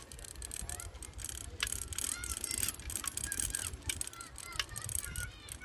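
A bicycle being ridden along a concrete lane, with a steady low wind rumble on the microphone and scattered rattling clicks from the bike. Short high chirps come and go throughout.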